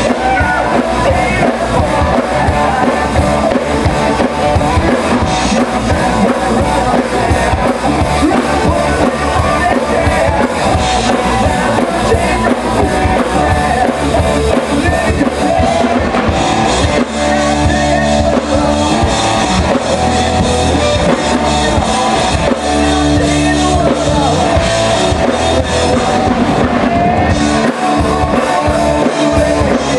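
Rock band playing live through a PA: electric guitar, bass guitar and drum kit, with a male singer's vocals. About halfway through, the guitars and bass change to longer held chords over the drums.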